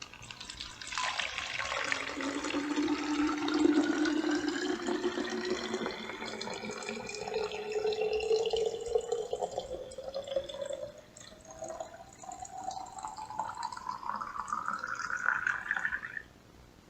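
Water poured into a bottle, splashing, with a resonant tone that rises steadily in pitch as the bottle fills. The pour slackens briefly about eleven seconds in, then stops suddenly near the end.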